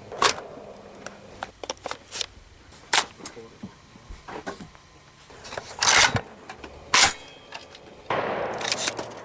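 Sharp metallic clicks and clacks of AR-15 and AK rifle controls being worked by hand, a handful at irregular spacing with two louder clacks past the middle, then a short rustling scrape near the end.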